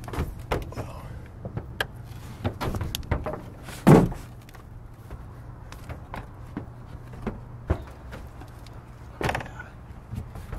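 Irregular knocks, taps and scrapes of hands, shoes and a handheld camera against a slate roof during a climb, with one loud thump about four seconds in.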